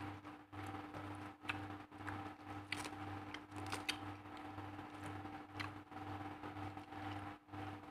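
Faint crackles and rustles of raw green leaves and paper being handled and pulled apart, as short scattered clicks. Under them runs a steady background hum with a low throb pulsing about twice a second.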